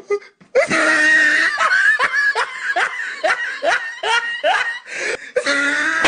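A person laughing loudly in a rapid run of short rising laughs, about three a second, starting about half a second in.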